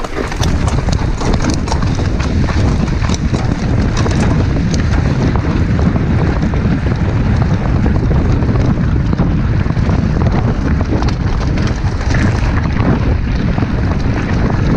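Wind buffeting the microphone of a handlebar-mounted camera on a mountain bike ridden fast down a gravel track, with the tyres and bike rattling over the stones in a constant clatter.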